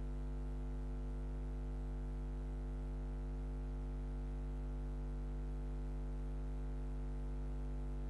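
Steady electrical mains hum, a low buzz with a stack of overtones, unchanging throughout, over faint hiss. No bat strike, crowd or other event stands out above it.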